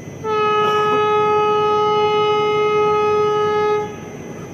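Vande Bharat Express train horn giving one long, steady blast of about three and a half seconds at a single pitch, over a low rushing background.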